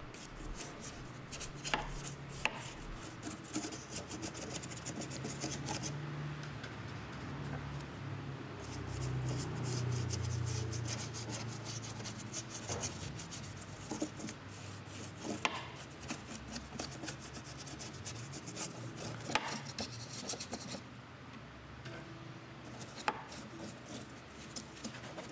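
A stiff paintbrush scrubbing paint onto balsa wood, the bristles scratching in quick strokes. The scrubbing comes in long stretches with a couple of short pauses, and there are a few light knocks.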